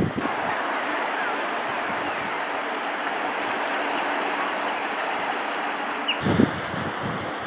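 Steady rush of ocean surf, with wind buffeting the microphone in low gusts from about six seconds in.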